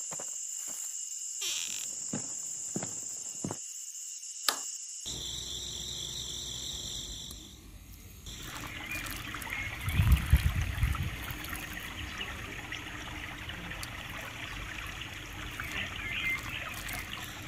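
A small battery-powered DC water pump whines steadily with a few clicks, then, about eight seconds in, water pours from its plastic tube and trickles onto soil, with a brief heavier gush about ten seconds in.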